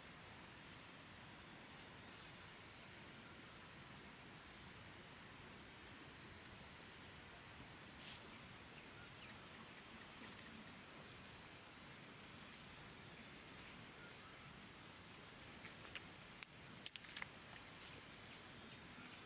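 Insects chirring steadily in two high, thin tones, one with a fine rapid pulse, over faint outdoor ambience. A few sharp clicks and knocks come near the end, the loudest of them a quick cluster.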